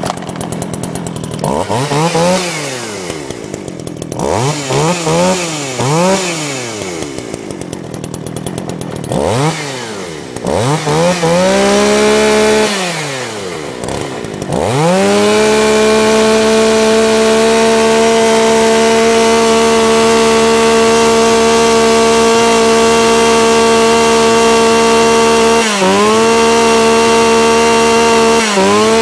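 Shindaiwa 400 two-stroke chainsaw revved in short bursts several times, dropping back toward idle between them, then held at full throttle for the second half, with two brief dips in speed near the end.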